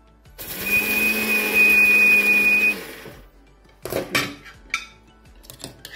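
Electric mixer-grinder dry-grinding black pepper, garlic and dried red chillies in its steel jar. It runs for about two and a half seconds with a steady whine, then winds down. A few clicks and knocks follow.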